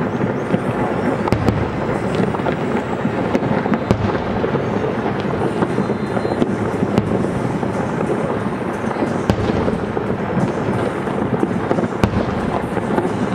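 Aerial firework shells bursting in quick succession: a continuous rumble of booms with many sharp cracks, without a pause.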